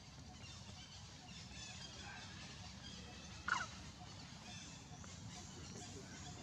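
A single short squeal falling in pitch about three and a half seconds in, over faint scattered high chirping.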